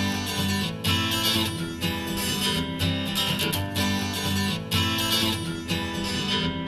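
Acoustic guitar strumming a steady rhythm: the instrumental opening of an acoustic song, played back through in-ear monitors for a sound comparison.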